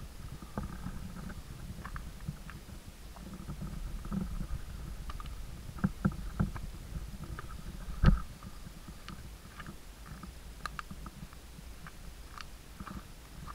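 Footsteps on a rocky, leaf-strewn mountain trail: irregular steps and knocks, with a louder thump about eight seconds in, over a steady low rumble from the handheld camera being carried.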